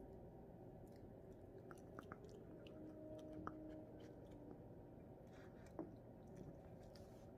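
Pomeranian puppy chewing on a treat: faint, scattered small clicks and crunches from its mouth, with a couple of sharper clicks.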